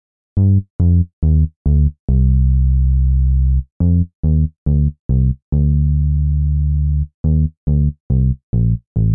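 Instrumental synthesizer song intro. A low synth bass line starts about half a second in, with short notes about twice a second, broken by two long held notes.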